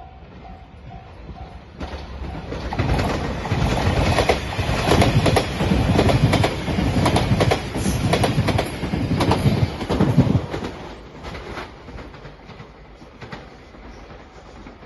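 JR Shikoku 8600 series limited-express electric train passing over a level crossing. The crossing bell dings about twice a second, then is drowned as the train rushes by with its wheels clacking over the rail joints. The train noise fades after about eleven seconds.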